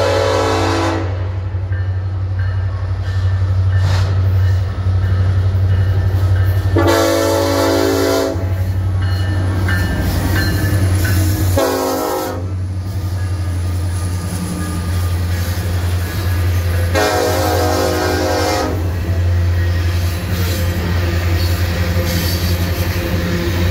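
BNSF diesel locomotive horn sounding four blasts, the third one short, in the long-long-short-long pattern of the standard grade-crossing signal. Under it runs the steady low rumble of the coal train's locomotives and cars rolling past.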